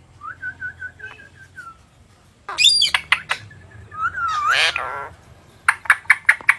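Pet parrot calling: a quick run of about eight soft chirps, then loud harsh squawks, a gliding call, and a rapid string of sharp squawks near the end.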